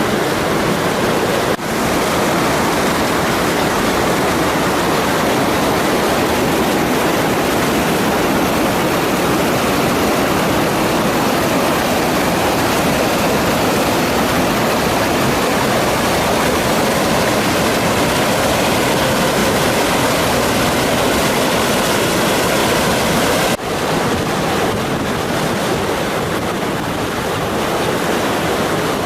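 Waterfall rushing, a loud, steady roar of falling water, with two momentary dips, one near the start and one about three-quarters of the way through.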